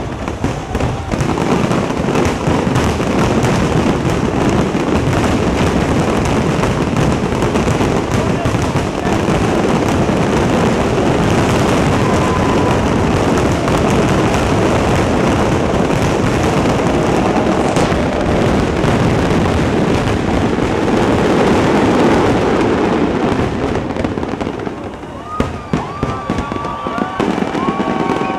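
Fireworks display with a dense, continuous barrage of overlapping bangs and crackling. About 24 seconds in it thins out to separate pops, and whistles that bend up and down in pitch come in near the end.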